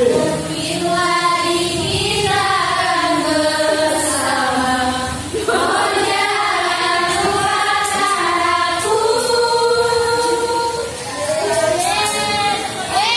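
Many voices singing a song together in held notes.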